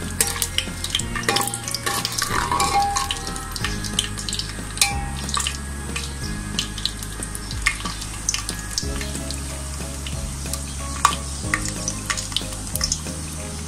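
Whole spices frying in hot oil and ghee in a pan: a steady sizzle with many scattered sharp crackles and pops. The spices are bay leaves, cinnamon, cardamom, dried red chillies and peppercorns.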